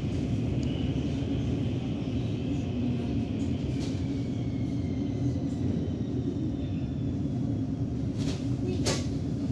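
Helsinki metro train running at speed, heard from inside the carriage: a steady low rumble of the wheels on the rails, with a faint high whine that slides slowly in pitch. A couple of sharp clicks come near the end.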